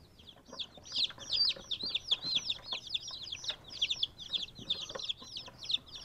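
Several newly hatched chicks peeping, a rapid stream of short high-pitched chirps several per second, louder from about a second in.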